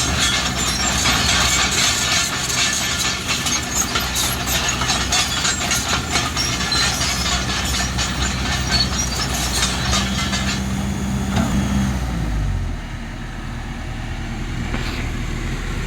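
Kobelco SK excavator's diesel engine running at working revs under a dense rattle from the machine, then the revs drop away to a low idle about twelve seconds in.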